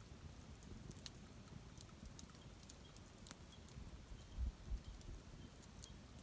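Faint, scattered light ticks and taps as a small spice container is shaken to sprinkle cinnamon, with a couple of low dull bumps about four and a half seconds in.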